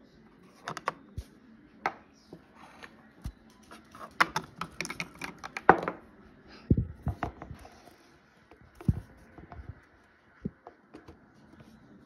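Irregular clicks and clacks of plastic toy animal figures and plastic toy furniture being handled and set down, thickest around the middle, with a few dull thumps later on.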